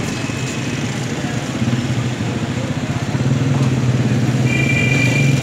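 Food sizzling on a large hot iron griddle, under a steady low motor hum that grows louder about three seconds in. A thin high tone sounds briefly near the end.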